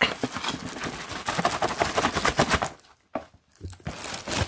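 Paper and plastic wrapping rustling and crinkling in the hands as a small wrapped package is handled and pulled open: a dense run of crackles, a short lull with a single tap about three seconds in, then more rustling.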